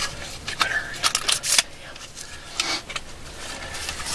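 Brief rustling and clicking handling noises close to the microphone, in a string of short sharp bursts, most of them about a second in, again near three seconds and just before the end.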